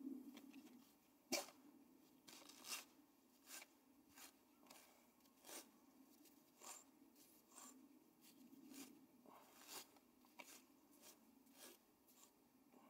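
Flax fibres being pulled through the steel pins of a flax hackle: a run of short, dry, rasping combing strokes, about one or two a second, the loudest a little over a second in. This is hackling, the final combing of flax that aligns the long fibres and strips out the short tow.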